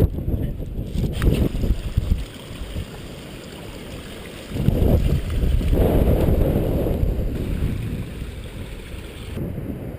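Gusty blizzard wind buffeting the microphone: a rumble that surges and eases, with a lull a couple of seconds in and a strong gust from about halfway.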